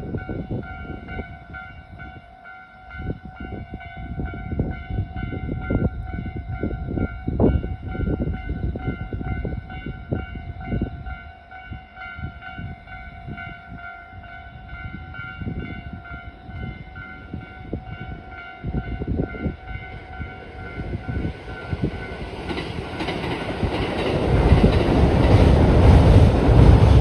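Japanese level-crossing warning bell ringing steadily over irregular low rumbles; from about three-quarters of the way in, an approaching Kintetsu train's running noise rises to a loud roar that swamps the bell.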